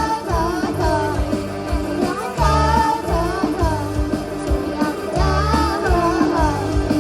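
Background pop music: a soft pop song with a sung melody over bass and a steady beat.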